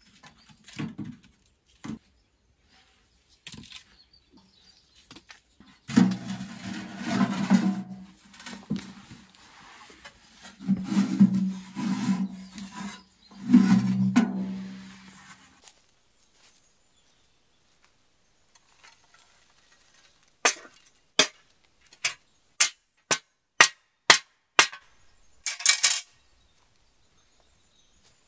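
Steel ash tray of a small wood stove scraped and slid out of the firebox, three loud scrapes from about six seconds in. After a pause, footsteps crunching through dry leaf litter, about one step every two-thirds of a second.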